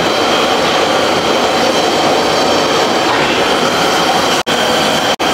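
Loud, steady sizzling hiss of batter fritters deep-frying in hot oil in a kadai over a gas burner, cut off by two brief gaps near the end.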